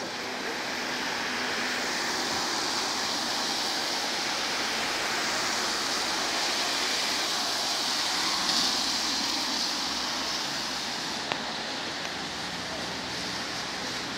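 Steady wet hiss of a rain-soaked city street, swelling a little past the middle as car tyres run over the wet asphalt, with one short click later on.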